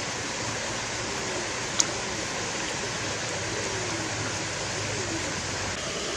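A steady rushing noise, even and unbroken, with one sharp click about two seconds in.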